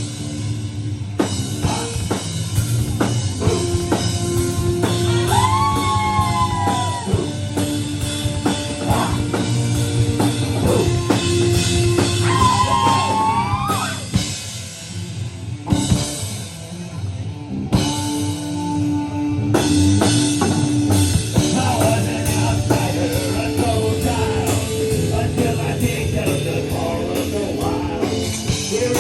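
Rock music played through the sound system, with drum kit, bass and a lead line whose notes bend up and down, in an instrumental passage. It thins out briefly about halfway through and then picks up again.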